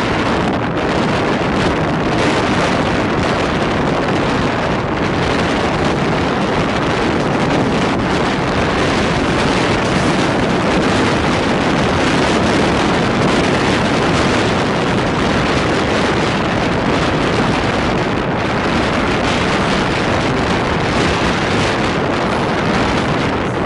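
Steady rush of wind and running noise from a Rajdhani Express passenger train moving at speed, with wind buffeting the microphone.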